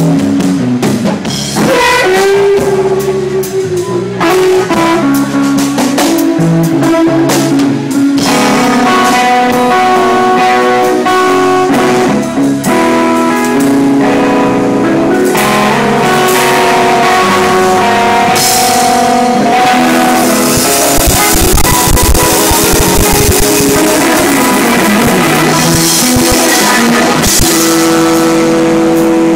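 Rock-blues music with guitar and drum kit playing throughout.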